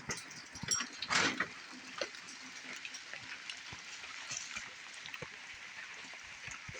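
Light rain pattering steadily, with scattered drips and a short noisy burst about a second in.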